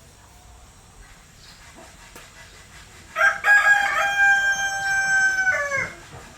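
A rooster crows once, starting about three seconds in: one long cock-a-doodle-doo whose held note drops in pitch at the end.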